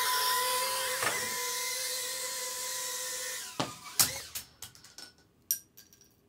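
Eachine Turbine QX70 micro quadcopter's brushed motors and ducted propellers running with a steady high whine as it flies. The whine cuts off about three and a half seconds in, followed by several sharp knocks and clatters as the quad crashes and loses a propeller.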